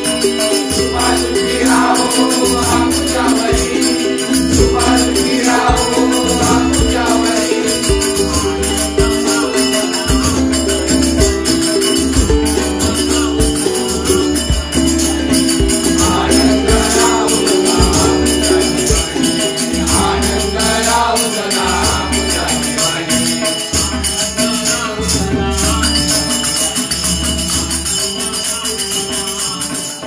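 Group of men singing a devotional bhajan together to harmonium, with a hand drum and jingling hand cymbals keeping a steady beat.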